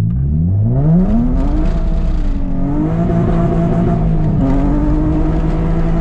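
Nissan 350Z's VQ35DE V6, heard from inside the cabin, accelerating hard. The revs climb steeply over the first two seconds, dip and climb again at a shift, then hold fairly steady.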